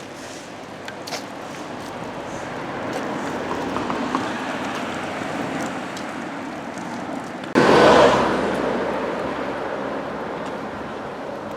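Road traffic: a vehicle noise swells and passes, then a sudden loud rush breaks out about two-thirds of the way through and fades over a couple of seconds.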